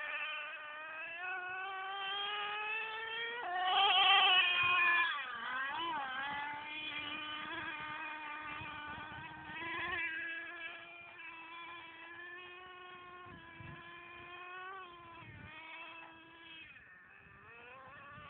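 Traxxas Slayer radio-controlled truck's nitro engine running with a high whine as it drives, revving up and down. The pitch climbs slowly at first, jumps and wavers in the loudest stretch about four seconds in, then holds fairly steady before dropping and rising again near the end.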